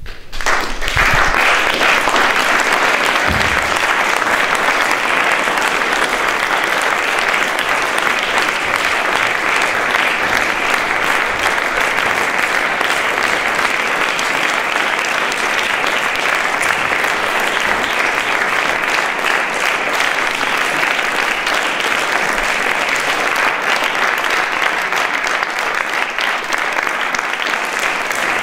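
Theatre audience applauding at the curtain call: dense, steady clapping that breaks out all at once and holds at an even level.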